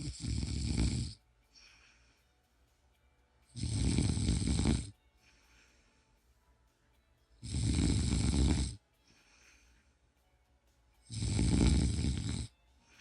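A person snoring in a slow, even rhythm: four loud rasping snores on the in-breath, each about a second long and about three and a half seconds apart. A faint breath out follows each one.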